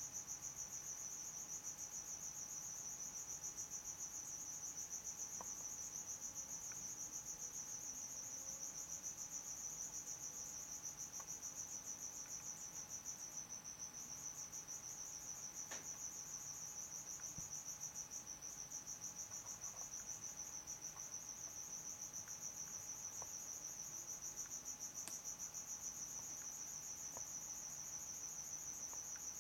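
A steady, high-pitched cricket-like trill, pulsing rapidly and unbroken, with a couple of faint ticks.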